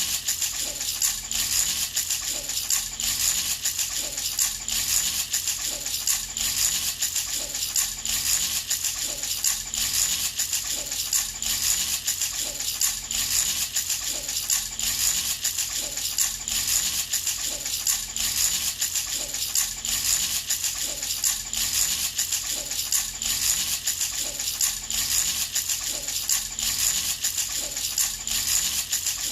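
Baby rattle shaken continuously in a steady, even rhythm, its beads rattling with a bright jingle.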